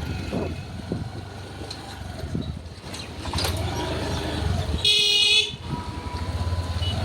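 Steady low rumble of a scooter ride through town traffic. A little past the middle, a vehicle horn gives one short, shrill toot of about half a second, the loudest sound here.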